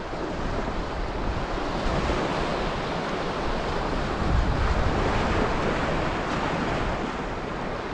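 Small waves breaking and washing up a sand-and-pebble shore in a steady wash of surf, swelling a little in the middle, with wind buffeting the microphone.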